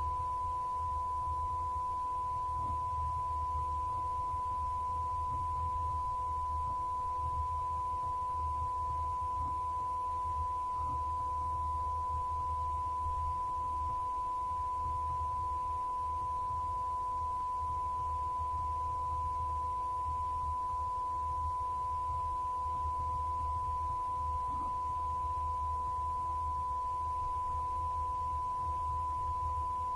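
A steady electronic test tone at about 1 kHz, held without a break, with a faint low hum underneath.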